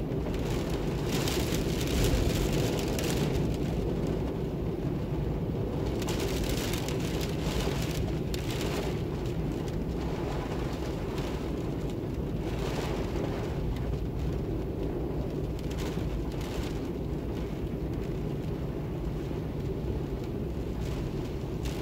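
Storm-force wind blowing: a steady low rush, with gusts every few seconds that bring a brighter hiss.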